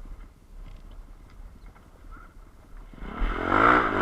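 Enduro motorcycle engine revving hard, coming in suddenly about three seconds in, its pitch rising and falling with the throttle.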